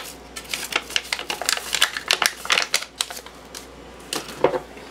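Au jus gravy mix packet crinkling and rattling as it is shaken empty over the slow cooker: a quick run of dry clicks for about three seconds, then a few last clicks near the end.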